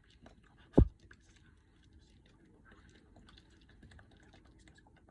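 A single sharp thump about a second in, followed by faint, scattered clicks and taps.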